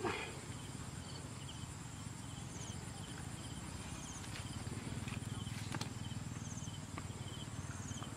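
Rice-paddy ambience: insects buzzing in a steady high drone, with short high chirps repeating about once a second. A brief falling squeal at the very start is the loudest sound, and there are scattered clicks as hands dig in the wet mud.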